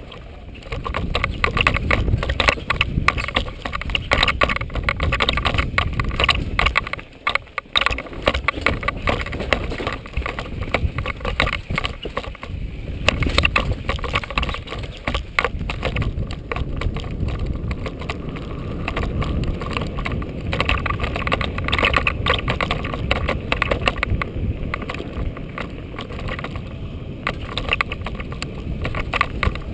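Mountain bike descending a rough forest dirt trail at speed: wind rushing over the camera microphone and tyres rumbling over dirt and rocks, with constant clattering and rattling of the bike over bumps. The noise drops briefly about seven seconds in, then picks up again.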